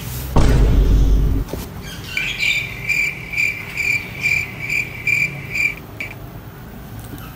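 Low rumbling handling noise as the phone camera is moved, then a high-pitched chirp repeated about twice a second for several seconds.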